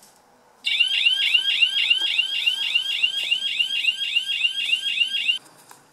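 Electronic alarm of an airsoft bomb prop in a hard case: a loud, rapidly repeating rising whoop, about three and a half a second. It starts about half a second in and cuts off suddenly near the end.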